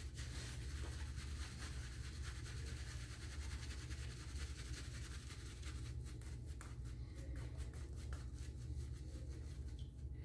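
Omega 10048 boar-bristle shaving brush swirled over a lathered face: a faint, rapid, scratchy swishing of bristles through shaving-soap lather against skin and stubble, as the lather is built up with added water. A steady low hum sits underneath.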